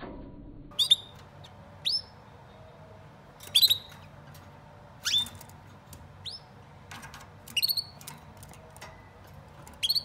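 Caged canaries calling: short, sharp chirps, each dropping in pitch, about seven of them at uneven intervals of roughly a second.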